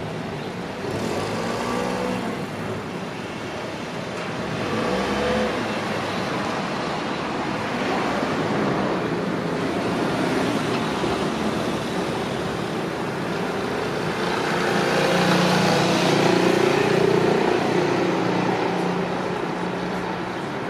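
Road traffic: several motor vehicles drive past one after another, their engines swelling and fading as each goes by, loudest about three quarters of the way through.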